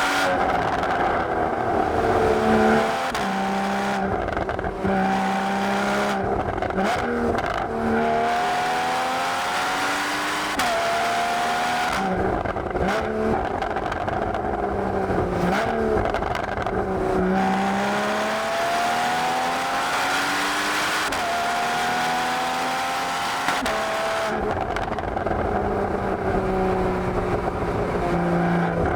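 Porsche Boxster GTS (981) 3.4-litre flat-six exhaust under hard acceleration. It climbs in pitch through the revs and drops sharply at each upshift, and this repeats several times through the gears.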